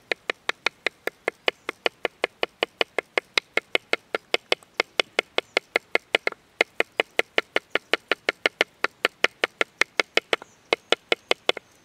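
Rapid, even light taps of a wooden stick on a green branch resting on a pine stump, about five a second, pausing briefly twice. The gentle tapping loosens the bark from the wood so it can be slipped off whole.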